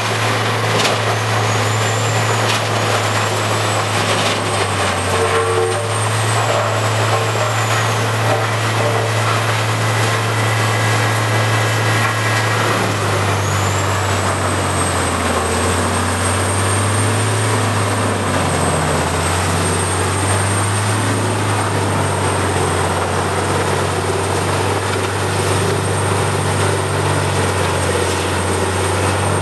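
Peterson 5710C horizontal grinder running under load, its diesel engine droning steadily while logs feed into the grinding drum. A thin high whine glides up and down in the first several seconds, then rises about halfway through and holds.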